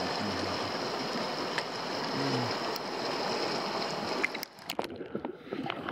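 Rushing water of a river rapid close to the microphone, a steady rush that drops away about four and a half seconds in, with a few short clicks and knocks near the end.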